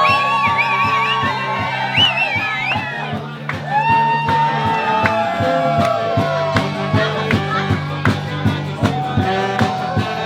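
Background pop music: a sung melody with vibrato over a steady bass line and a regular beat.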